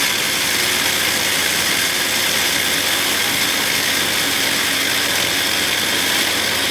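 Old Vitek electric chopper running steadily, grinding dried apple slices into powder, with a high whine above the grinding noise.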